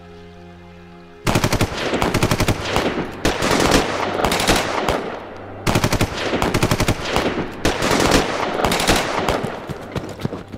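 Machine-gun fire: a long burst of rapid automatic shots starting about a second in, a short pause near the middle, then a second long burst that stops near the end.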